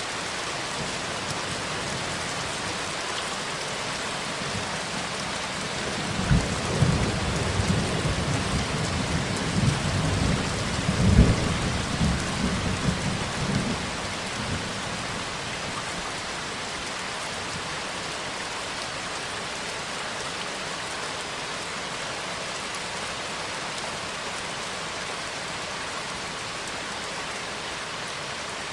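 Steady rain falling, with a roll of thunder about six seconds in that rumbles low with two sharper cracks and dies away after about eight seconds.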